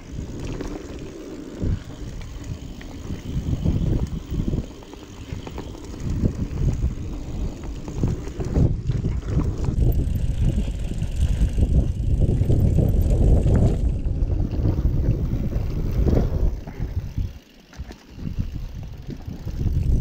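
Wind rushing over the microphone while a mountain bike descends a dirt trail, with the tyres rumbling over the ground. The noise eases briefly near the end.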